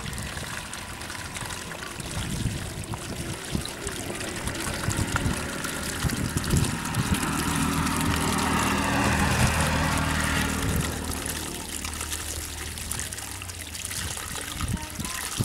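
Water trickling and running through a cut in a mud bank into shallow water, with a low hum swelling in the middle and fading.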